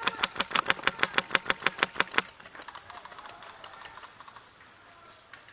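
Airsoft rifle firing a rapid full-auto string of about twenty shots, roughly ten a second, that stops about two seconds in. Fainter rapid shots follow for a couple of seconds more.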